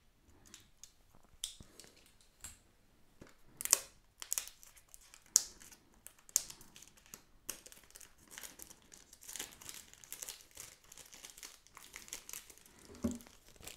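Clear plastic shrink wrap crinkling and tearing as it is peeled and crumpled off a small cardboard box, in a dense run of sharp crackles. There is a short, lower knock near the end.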